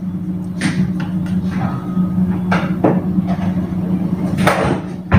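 A few knocks and short clatters from kitchen cupboards being opened and things handled, over a steady low hum.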